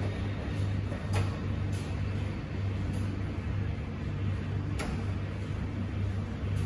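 Commercial front-loading washing machine on its drain stage: the motor hums steadily while the drum tumbles the wash. There are two sharp knocks, about one and five seconds in.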